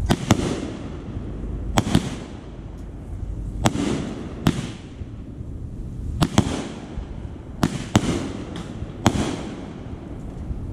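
Consumer firework cake firing aerial shells that burst overhead: about a dozen sharp bangs, a second or two apart and often in close pairs, each with an echoing tail.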